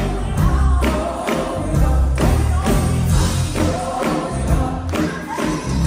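Live gospel band and singers performing an upbeat song with a steady beat.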